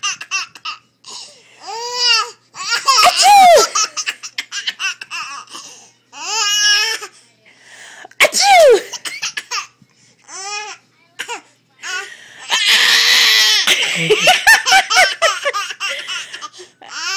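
A baby boy laughing hysterically in repeated fits of high-pitched squealing giggles, with short pauses between them. The sound is a reaction to sneezing. About three-quarters of the way through comes a longer, breathier stretch of laughter.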